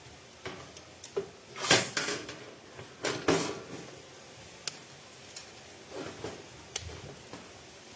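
Metal clanks and rattles of a wire grill grate being lowered onto a barbecue grill and shifted into place, the loudest clatter about two seconds in, followed by a few lighter clicks.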